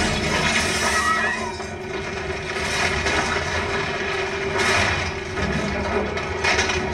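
Film soundtrack sound effects: a steady low rumble with a constant hum, and a few swells of noise that rise and fall.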